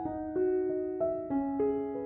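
Background music: a gentle piano melody moving note by note, about three notes a second.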